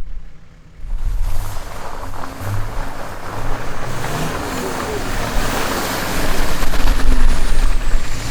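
A 4x4 driving off-road: low engine rumble under a broad rushing noise that swells from about a second in and stays loud.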